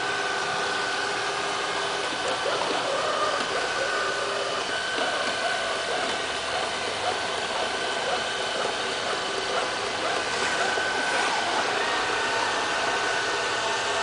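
Robot vacuum cleaner running: the steady whir of its suction fan and brush motors with a faint steady whine on top.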